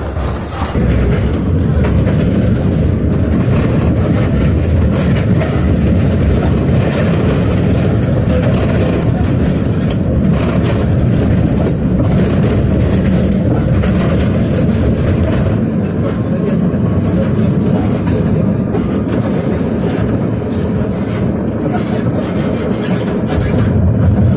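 Ride noise inside a KTM-28 (71-628-01) low-floor tram under way: its wheels running on the rails and its traction drive giving a steady low rumble. The noise picks up about a second in and then holds steady.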